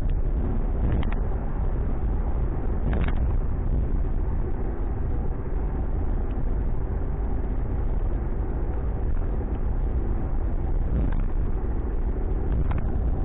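Ford Mustang cruising, heard from inside the cabin: a steady low rumble of engine and road noise, with a few faint clicks.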